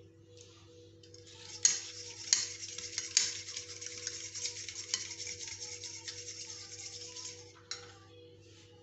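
Metal fork whisking eggs in a ceramic bowl: a fast, continuous clinking and scraping of the fork against the bowl, with a few sharper clinks in the first few seconds. It starts about a second in and stops shortly before the end.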